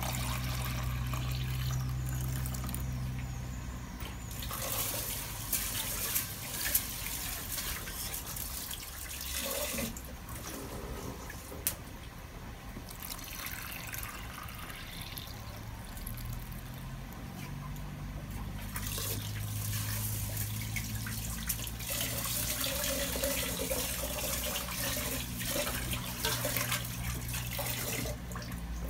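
Cloudy rice-rinsing water poured off from an aluminium pot of rice into a plastic basin, a splashing pour that comes and goes in several stretches as the rice is washed. A couple of light knocks, with a low steady hum underneath.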